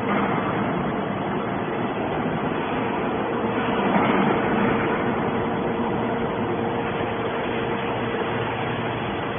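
Hydraulic alligator scrap shear (Q43-3150) running: a steady mechanical noise with a faint hum, swelling louder about four seconds in.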